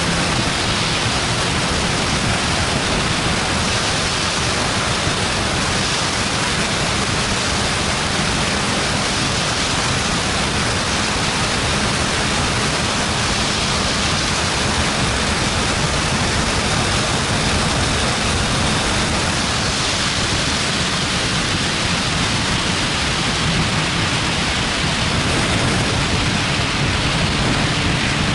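Steady rush of wind buffeting the microphone of an action camera on a motorcycle at highway speed. The engine's faint drone sits underneath.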